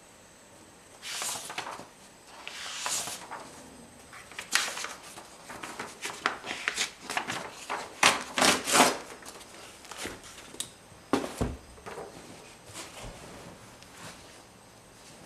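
Paper rustling and crinkling as sketchbook pages and a large paper map are handled and shifted, with a cluster of sharp crisp rustles in the middle and a dull thump about eleven seconds in.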